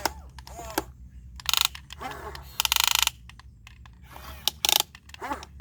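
Radio-controlled model excavator working: short bursts of rapid mechanical clicking from its gear drive, four times, over a low steady hum.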